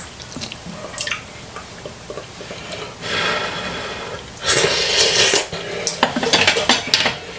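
Slurping hot instant noodles off chopsticks, then wet chewing and slurping, with a few light clicks of chopsticks on the pan early on.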